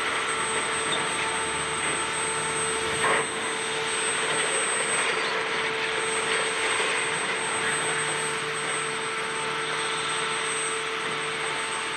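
High-reach demolition excavator running steadily while its hydraulic jaw tears at the building's concrete floors and corrugated metal cladding, with one sharp crash about three seconds in.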